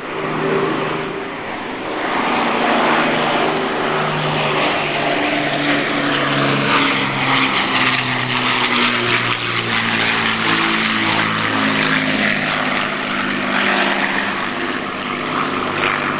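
Avro Lancaster bomber's four Rolls-Royce Merlin piston engines droning in a low flypast. The drone is a chord of several engine notes that slowly shift in pitch, and it gets louder about two seconds in.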